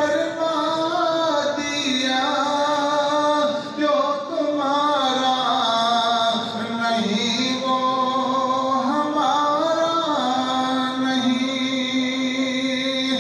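A man singing an Urdu naat unaccompanied, holding long notes that slide from one pitch to the next.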